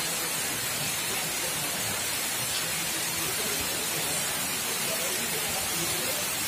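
Heavy monsoon downpour pouring steadily onto the ground, puddles and foliage: a dense, even rush of rain.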